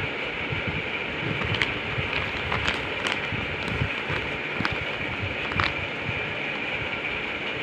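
Plastic courier mailer bag crinkling and crackling as it is picked up and turned over in the hands, in a few sharp crackles over a steady background hiss.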